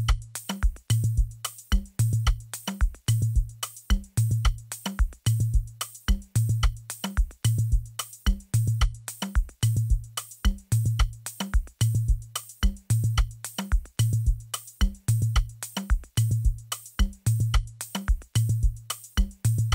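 Programmed drum beat playing back from an FL Studio mixing session while the drum channels are EQ'd. It is a steady, repeating loop with a deep kick-and-bass hit about once a second and quicker percussion clicks between.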